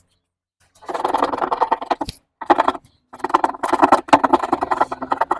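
Hacksaw blade scraping paint off a fridge's metal panel in quick strokes, baring the metal around a puncture before it is silver-brazed. The scraping comes in spells with short breaks, after a brief dead-silent gap at the start.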